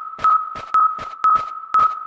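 Railway level-crossing warning bell ringing: a single high ping struck about twice a second, evenly and without pause.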